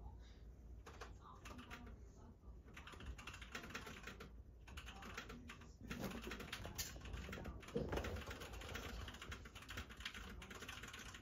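A cat clawing and scrabbling at a woven rug and carpet as it pounces on a toy: soft scratching and rustling in quick runs with short pauses, busier and louder in the second half.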